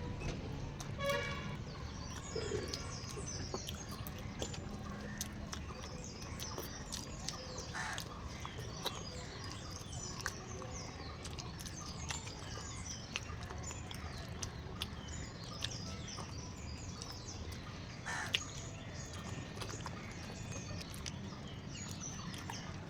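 Small birds chirping throughout, many short high calls, over a steady low hum, with scattered small clicks and a brief louder call about a second in.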